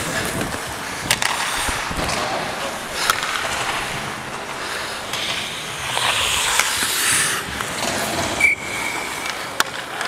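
Hockey skates scraping and carving on the ice, with scattered sharp clacks of sticks and puck. About eight and a half seconds in, a short steady high-pitched tone sounds.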